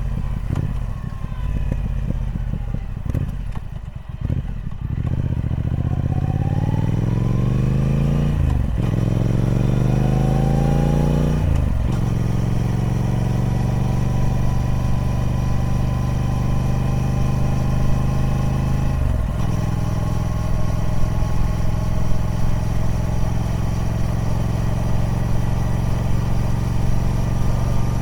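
Triumph Speed Twin 1200's parallel-twin engine through its stock exhaust. It runs low and uneven at first, then climbs in pitch twice as it accelerates, with an upshift about nine seconds in and another about twelve seconds in. It then holds a steady cruise, with one brief dip partway through.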